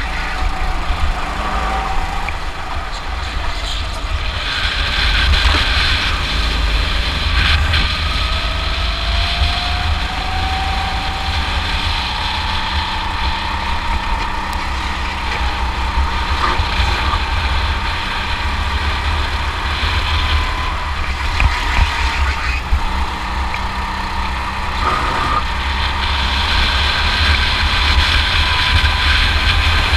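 Rental go-kart engine running at speed, heard from the onboard camera with heavy wind rumble on the microphone. The engine's whine climbs slowly in pitch as the kart gathers speed, dips briefly about three quarters of the way through, then holds steady.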